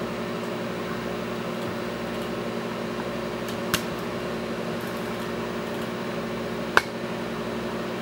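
Microwave oven running while it heats: a steady hum with a fan-like hiss. Two sharp clicks sound over it, a small one a little before the middle and a louder one about three seconds later.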